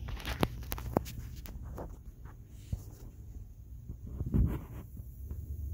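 Clicks and rustling from a handheld camera being moved about, with a louder thump about four and a half seconds in, over a low steady hum.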